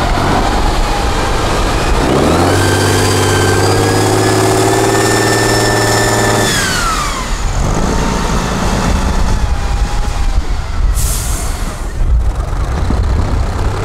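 Diesel engine of an 8x8 Tatra trial truck working hard in mud: the revs climb about two seconds in, hold high with a whine for about four seconds, then drop away, and the engine runs on unevenly. A short hiss of air comes near the end.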